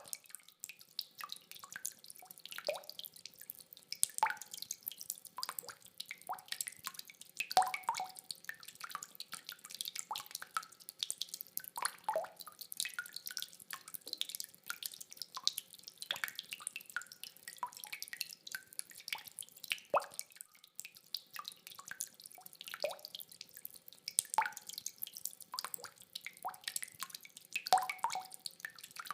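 Rainwater dripping: irregular drops falling several times a second, some landing with a short pitched plink, over a faint hiss.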